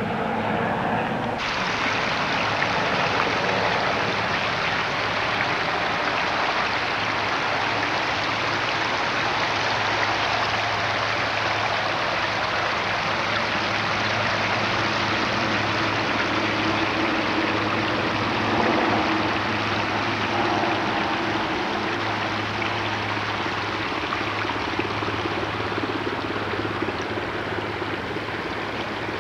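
Floodwater rushing in a steady, loud wash, with a low steady hum underneath.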